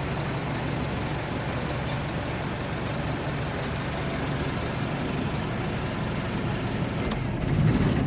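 Engine and road noise of an open-top safari truck driving along a dirt track, heard from on board as a steady low rumble. It swells briefly louder just before the end.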